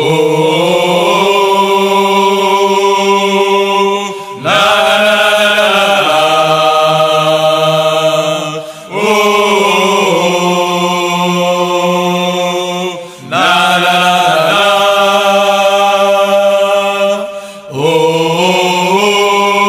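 Background music: a chant-like song sung in long held phrases of about four seconds each. Each phrase opens with a sliding rise in pitch.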